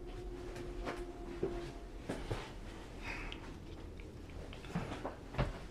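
Quiet room tone with a faint steady hum through the first second and a half, and a few light clicks and taps scattered through.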